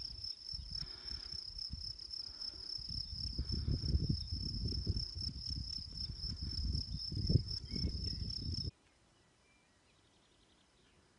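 A steady high insect trill over gusts of wind buffeting the microphone. Both stop abruptly about eight and a half seconds in, leaving near silence.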